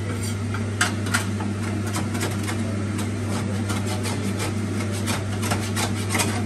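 Pork skin frying in a pan, the fat spitting and crackling with frequent irregular sharp pops over a steady low hum.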